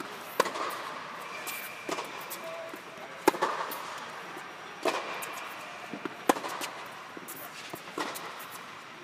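Tennis rally: sharp pops of racket strings hitting the ball about every one and a half seconds, the two players' shots alternating, with softer ball bounces between, echoing under an indoor tennis dome.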